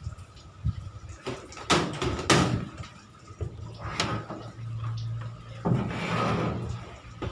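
Several sharp knocks and clunks, like a door or panel being shut, with a low steady hum between them from about halfway through and a short hiss near the end.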